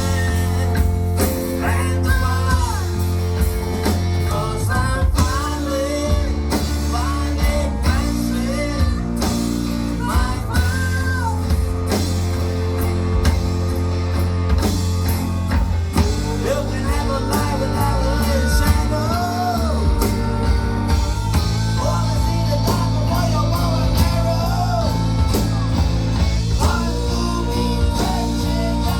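Live rock band playing: steady drums, bass and guitar chords, with a wavering lead melody line above them.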